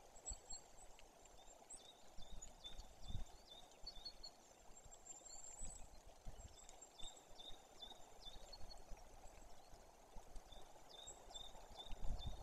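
Faint forest ambience: a small songbird sings short runs of quick repeated high notes, about six to a run, three times, with thin higher trills. A few low thumps come through, the strongest just before the end.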